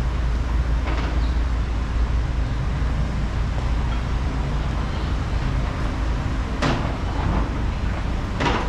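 City street traffic: a steady low rumble of passing vehicles, with three brief louder noises, about a second in, about two-thirds through and just before the end.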